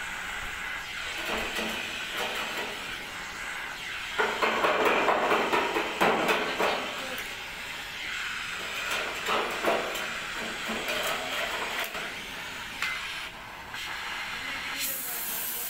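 Gas cutting torch hissing against a sheet-metal excavator panel while a hand scraper scrapes off the heated paint in repeated strokes, loudest about four to seven seconds in. This is the paint being stripped off corroded spots so they can be welded.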